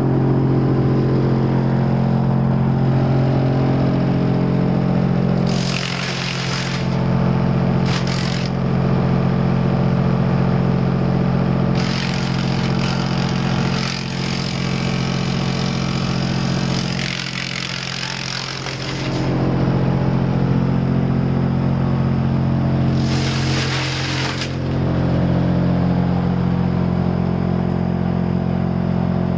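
Sawmill machinery running with a steady, loud hum, broken several times by stretches of harsh rushing, grinding noise. One is brief, about six seconds in. A long one runs through the middle.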